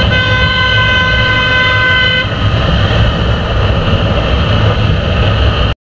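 A vehicle horn sounds one steady tone for about two seconds, over the steady rumble of a Honda Unicorn motorcycle's engine and wind rush while riding in traffic. Everything cuts off suddenly near the end.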